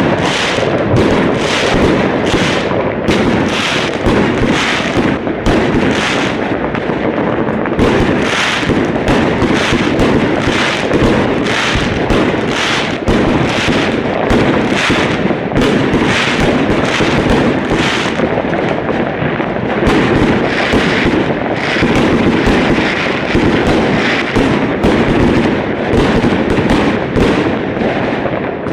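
Dense, continuous barrage of fireworks: many overlapping bangs and crackles, several a second, with no pause.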